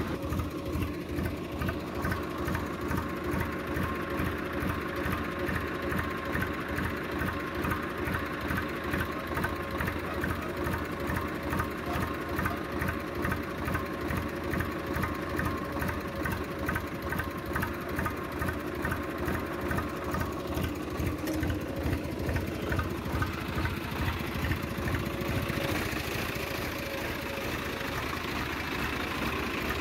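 Swaraj 855 FE tractor's three-cylinder diesel engine idling with a steady, even knock of firing pulses, a little quieter near the end. The engine has about 2,300 hours on it, and the seller says it has no problems.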